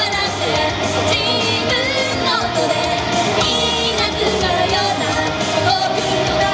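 Upbeat J-pop song: a girls' vocal group singing over a pop backing track with a steady beat.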